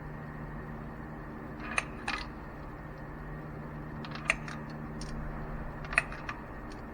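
Several sharp metallic clicks of hand tools and parts being handled in an engine bay, the loudest about two, four and six seconds in, over a steady hum like a shop fan.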